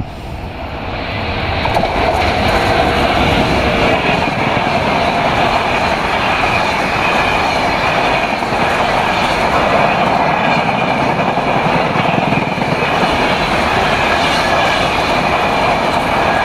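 Passenger train passing close at high speed, wheels clattering over the rails with a steady loud rush that builds over the first two seconds and then holds.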